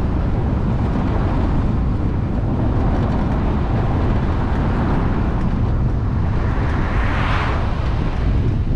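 Road and wind noise from a moving car, a steady low rumble. About seven seconds in, a brief whoosh swells and fades, like another vehicle passing close by.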